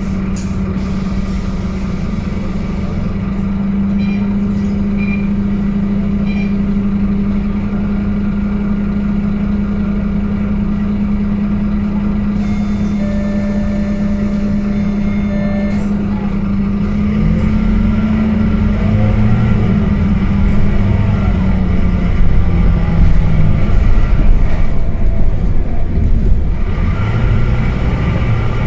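Scania K230UB bus's five-cylinder diesel engine, heard inside the passenger cabin, idling steadily at a stop. About two-thirds of the way through the bus pulls away, and the engine grows louder and shifts in pitch as it accelerates.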